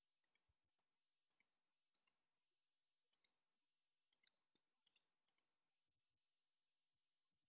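Faint clicks of a computer mouse and keyboard as shortcuts are pressed, most of them quick press-and-release pairs. There are about nine of them at irregular intervals, mostly in the first five and a half seconds.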